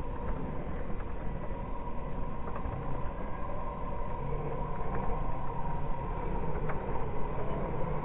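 Steady whine of an RC scale trail truck's electric motor and geared drivetrain as it crawls slowly over ice and slush, with a few short clicks.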